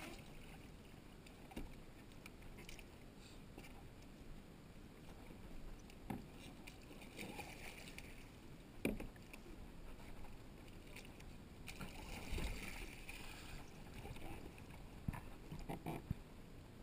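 Quiet lapping and sloshing of sea water against plastic sit-on-top kayak hulls, with a few faint knocks.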